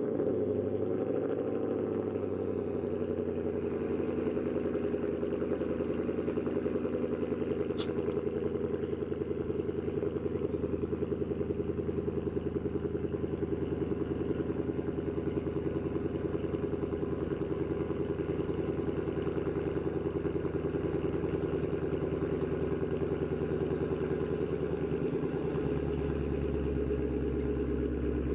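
Ford Coyote 5.0 V8 in a Mustang idling steadily through Roush axle-back mufflers with the resonators deleted. The deep low rumble grows stronger near the end.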